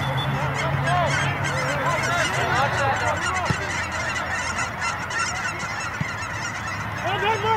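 A flock of birds calling: many loud, overlapping calls that rise and fall in pitch. Two sharp knocks stand out, about three and a half and six seconds in, and a low hum fades out in the first few seconds.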